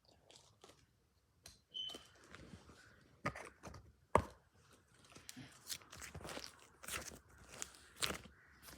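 Slime being squeezed and pressed, giving irregular crackles, pops and crunches, with one sharp pop about four seconds in and denser crackling in the second half.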